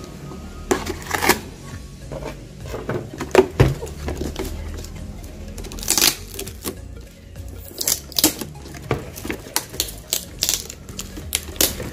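Hands handling a cardboard packaging sleeve and stacked plastic plant pots: scattered clicks, taps and knocks of card and plastic, over background music.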